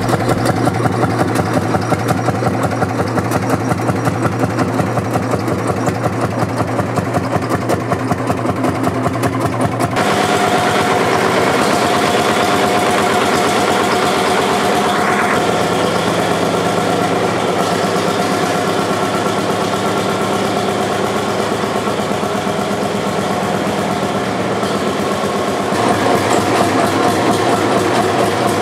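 Lanz Bulldog 1506's single-cylinder two-stroke hot-bulb engine running steadily at idle with an even, rapid beat. The sound changes abruptly about a third of the way in and again near the end.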